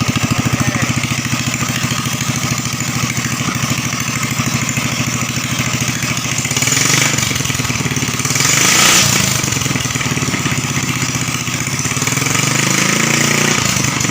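Sogo 13 hp (GX390-type) single-cylinder four-stroke petrol engine with a PWK 28 carburettor running steadily on a test run after its valves were lapped. Its speed rises briefly near the end.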